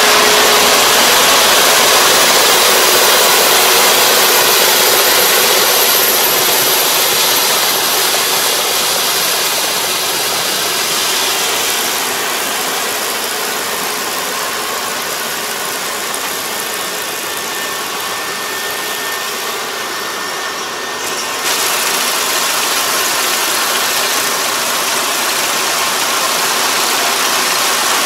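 Kubota ER470 four-row combine harvester running while cutting rice, its engine and threshing machinery making a steady mechanical din. The din fades as the machine moves away, then turns suddenly louder about three-quarters of the way through.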